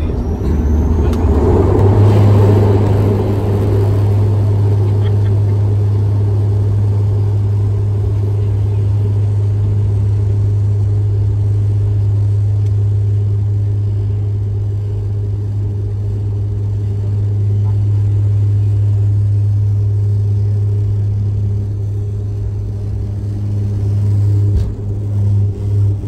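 Cabin sound of a De Havilland Dash 8-400 turboprop on its takeoff roll: the propellers give a steady low hum at takeoff power, which surges about two seconds in as power comes up, over a rumble from the runway. The sound wavers near the end as the plane rotates and lifts off.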